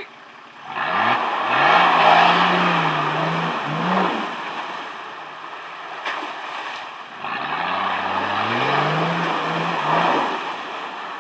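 Nissan Patrol 2.8 turbodiesel engine revving hard twice under load, each time rising in pitch and then holding, over a loud rushing wash of water churned up by the wheels.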